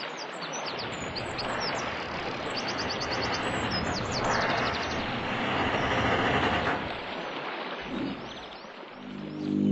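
Outdoor ambience: a steady rushing noise with no clear pitch, and many short, high bird chirps over it.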